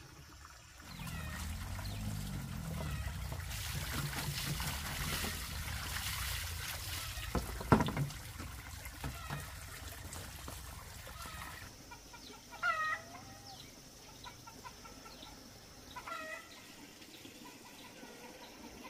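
Water pouring steadily for about ten seconds, with a sharp knock partway through. Then it stops and chickens cluck in short, curved calls every few seconds.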